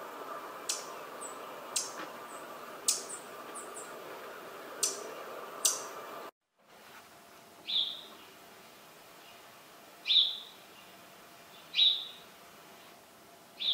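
Le Conte's sparrow giving thin, high notes, about five in six seconds, then house sparrow cheeps: four single chirps about two seconds apart, louder than the first bird.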